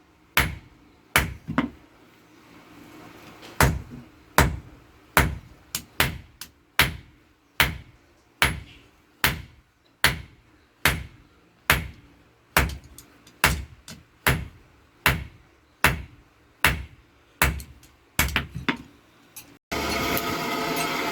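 Blacksmith's hammer striking on an anvil, forging rebar into tongs: single ringing blows at a steady pace of a little over one a second. Near the end, a steady motor noise cuts in abruptly.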